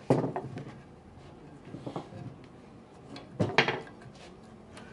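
Wooden knocks and clunks as boards of a wooden frame are handled and bumped together: a sharp knock at the start, a lighter one about two seconds in, and a louder double knock about three and a half seconds in.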